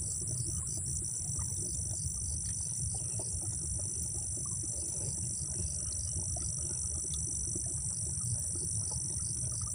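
Insects chirring in a steady high-pitched chorus with a faint pulsing, over a low steady rumble and a few light clicks.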